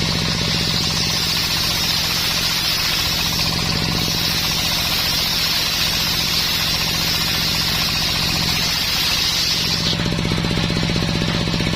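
Homemade circular sawmill sawing dense coconut wood: the blade's high, steady hiss rides over the pulsing drone of its engine. About ten seconds in the cutting hiss stops, as the blade comes out of the cut, and the engine keeps running.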